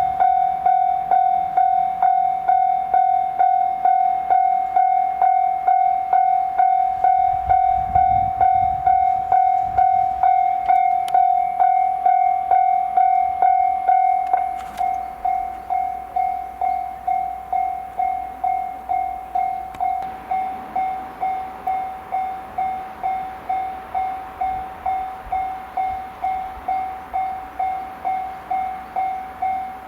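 Japanese railway level-crossing electronic warning bell ringing with an even clang at about two strikes a second, signalling an approaching train. It grows quieter about halfway through.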